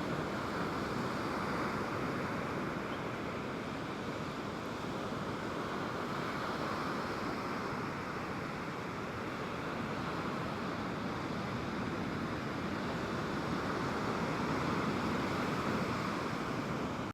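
Ocean surf on a beach: a steady wash of breaking waves, swelling and easing every few seconds.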